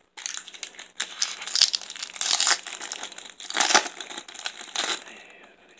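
Foil wrapper of a baseball card pack crinkling and tearing as it is pulled open by hand, in irregular crackly bursts, loudest around the middle.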